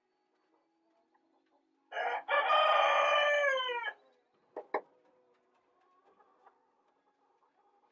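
A rooster crowing once, a call of about two seconds that drops in pitch at the end. Two short sharp sounds follow about a second later.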